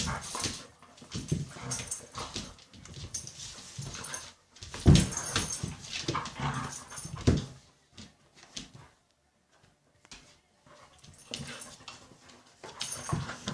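Border Collies play-fighting: irregular bursts of dog noises. The loudest burst comes about five seconds in, and there is a lull about eight seconds in before the play picks up again.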